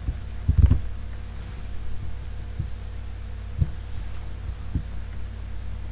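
Steady low electrical hum with a few dull thumps of typing on a computer keyboard; the loudest comes about half a second in.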